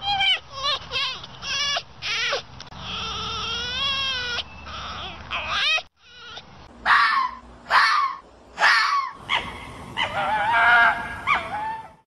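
A series of animal calls: several short pitched cries, then longer wavering ones, with a brief break about six seconds in.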